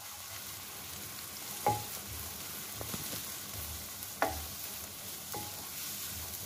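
Chopped onions sizzling in hot oil in a nonstick kadai as they are stirred with a wooden spatula. The spatula knocks sharply against the pan three times, about two seconds in, past the middle and again shortly after.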